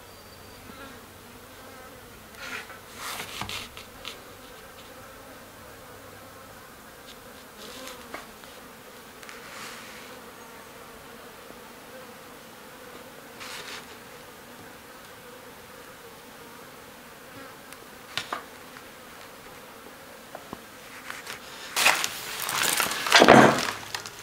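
A flying insect buzzing faintly, with a few short scraping and handling noises from work on a wooden bow. The loudest is a rustling stretch near the end.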